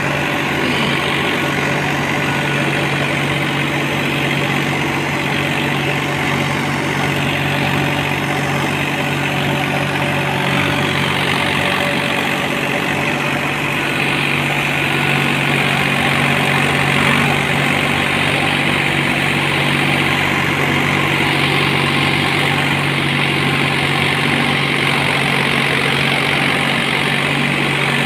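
Kartar 50 hp tractor's diesel engine running steadily under load as it drives an 8-foot rotavator through the soil.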